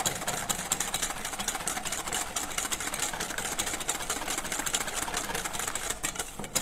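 Wire whisk beating instant custard mix and milk in a stainless steel bowl: fast, rhythmic clicking and scraping of the wires against the metal as the mix starts to thicken.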